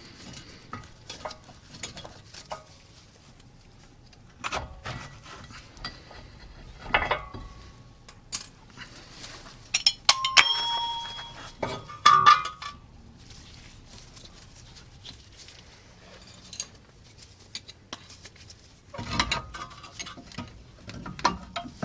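Scattered metal clinks and knocks as a VW Tiguan's front brake caliper and pads are worked off and handled, with a few short ringing clinks of metal parts about ten to twelve seconds in.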